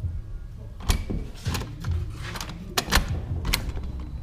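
Footsteps and knocks from the camera being carried while walking: a string of sharp knocks roughly two a second over a low rumble.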